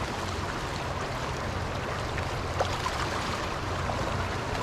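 Steady rushing of water, an even hiss-like wash with a low rumble beneath it.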